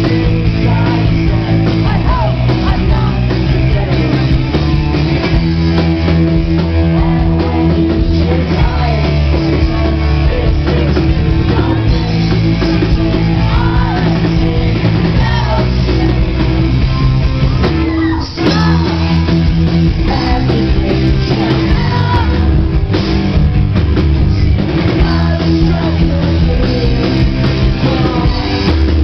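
Rock band playing live and loud, with sung vocals over electric guitars and drums. The sound dips out for a moment about eighteen seconds in.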